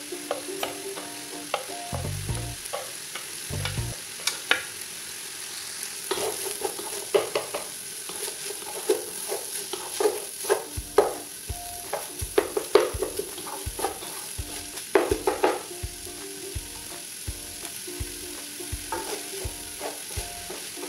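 Wooden spatula scraping and knocking against a nonstick pan while minced chicken, hotdog and diced vegetables are stir-fried, over a steady sizzle. The scrapes and knocks come irregularly and are busiest in the middle.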